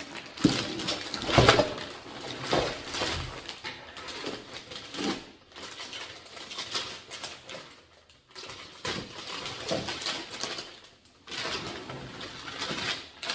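A shopping bag rustling as it is opened and items are taken out, with several sharp knocks as things are handled; the loudest clatter comes about a second in.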